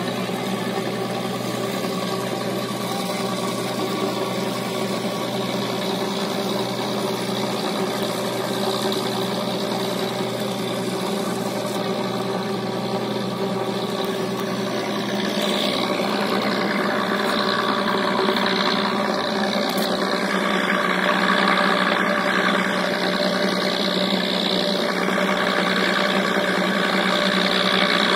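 River ferry's engine running at a steady drone throughout. About halfway through, a rushing hiss of water or wind joins it and makes it a little louder.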